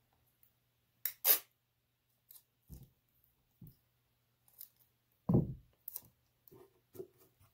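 Sticky tape being handled while wrapping a present: two quick sharp tearing or snipping sounds about a second in, then scattered soft knocks and small paper rustles, with a heavier soft thump about five seconds in.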